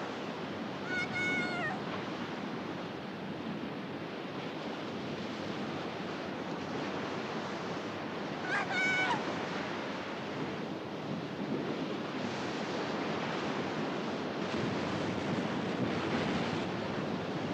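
Ocean surf breaking and washing up a sandy beach, a steady rushing noise. Twice, about seven seconds apart, a short high cry sounds over the surf.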